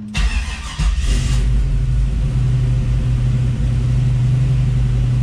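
Turbocharged 5.3-litre LS V8 cranking briefly and catching. It flares up about a second in, then settles into a steady idle.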